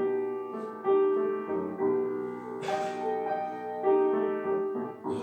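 Piano playing an instrumental passage between sung lines of a song, with fresh chords struck about once a second and a short hiss about two and a half seconds in.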